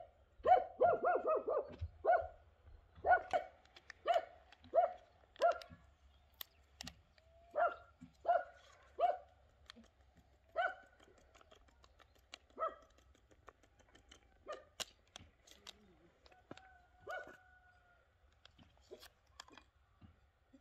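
A dog barking repeatedly: a quick run of barks in the first couple of seconds, then single barks every half second to a second, growing fainter toward the end.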